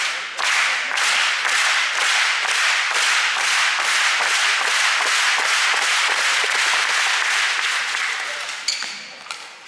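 Large arena crowd clapping in a steady, even rhythm, dying away near the end.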